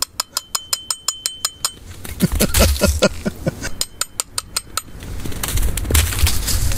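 A metal spoon tapped quickly against a hard object, about six clinks a second, with a ringing tone on the first run; a second run starts about four seconds in. It is a call to the cats. Between the two runs comes a louder string of quick short calls, each falling in pitch.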